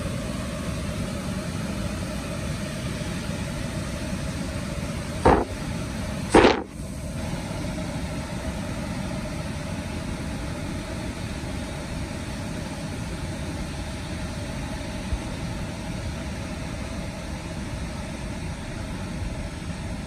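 Steady rushing of a broad waterfall's water over rocky cascades and rapids. Two short loud bumps come about five and six and a half seconds in.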